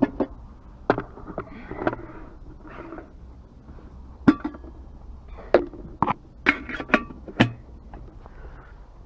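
Scrap metal being handled and taken apart by hand: a run of sharp knocks and clinks, a few of them ringing briefly. There is one hit about a second in and a cluster of six or seven in the second half.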